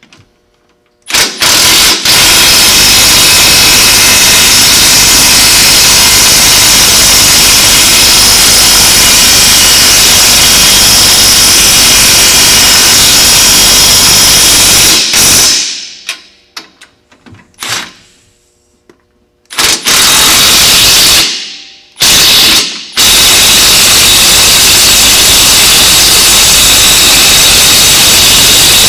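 Milwaukee cordless impact wrench driving front suspension bolts tight, with rapid hammering. It starts about a second in and runs for about fourteen seconds. Then it trails off, comes back in two short bursts, and finishes with another long run.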